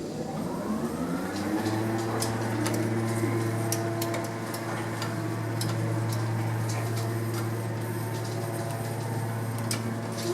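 Heavy-duty goods lift's drive machinery running up to speed with a rising whine over the first couple of seconds, then running steadily with a low hum and scattered clicks as the car travels, and winding down near the end.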